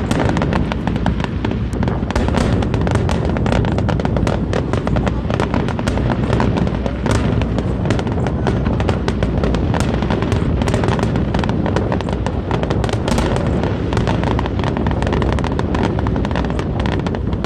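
Aerial fireworks display: a dense, continuous crackle of many small bursts over a steady low rumble.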